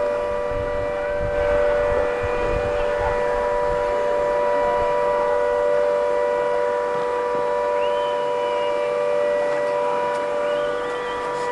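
Demolition warning siren sounding a steady, unwavering tone made of several pitches, with a low rumble of wind on the microphone in the first few seconds and a few faint short high whistles later on.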